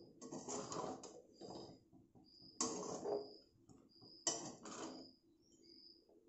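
Flat spatula scraping and tossing stir-fried noodles in an aluminium kadhai, in several short bursts of scraping strokes; the loudest come at about two and a half and four seconds in.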